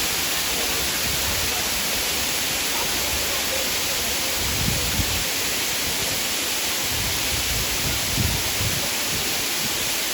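Waterfall rushing with a steady, loud, hissing roar of falling water. A couple of brief low bumps come through, about halfway through and again near the end.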